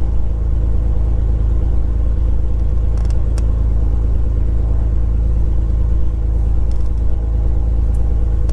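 Beechcraft G36 Bonanza's six-cylinder Continental IO-550 engine running steadily at low taxi power, heard from inside the cockpit as a loud, even drone over a deep rumble.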